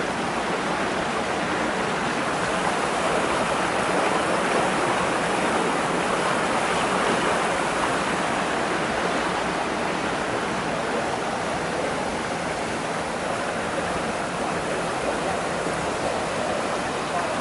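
Raw wastewater rushing steadily through the bar-screen channel of a treatment plant's pre-treatment unit, a constant turbulent flow.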